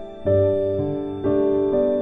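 Background music: soft piano-like keyboard chords, a new chord struck about every half second to second.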